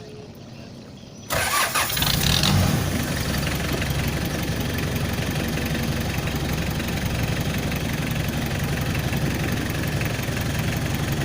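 Mitsubishi L300 van engine starting about a second in, catching with a brief louder surge, then settling into a steady idle.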